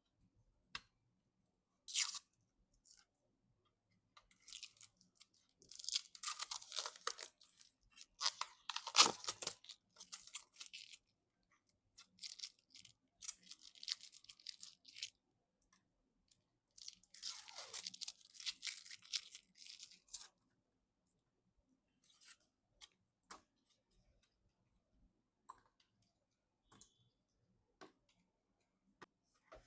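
Bursts of crinkling, rustling handling noise with scattered clicks, the loudest around nine seconds in, thinning to a few faint clicks for the last several seconds.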